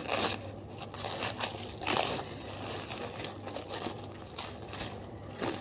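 Clear plastic film wrapping crinkling and crackling in irregular bursts as hands pull it off a small plant pot.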